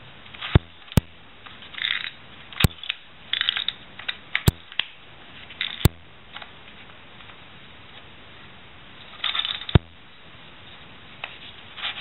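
Plastic Latch Pyraminx puzzle being twisted by hand: short scraping rattles as the pieces slide, with about six sharp clicks as turns snap into place.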